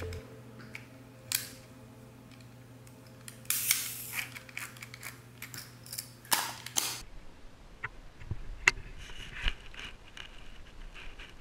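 Film being loaded into an Olympus Pen EED half-frame camera by hand: clicks and a few short scraping strokes of the film leader and camera parts, over a low steady hum. About seven seconds in this gives way to a quieter outdoor ambience with a few faint ticks.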